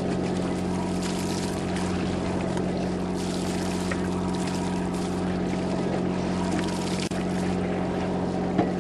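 Boat engine running steadily, a constant low hum, with a hiss of wind and water behind it.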